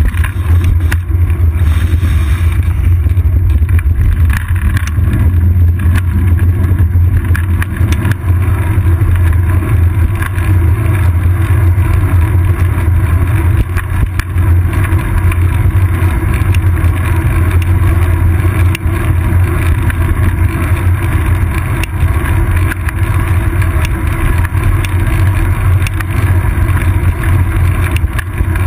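Bicycle riding on an asphalt road, heard through a seat-post-mounted camera: a loud, steady low rumble of wind and road vibration, with faint scattered clicks from bumps.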